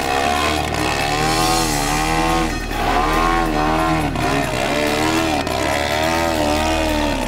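Large-scale radio-controlled aerobatic plane's petrol engine and propeller running in a nose-up hover. The engine pitch rises and falls over and over as the throttle is worked to hold the hover, with a short dip about two and a half seconds in.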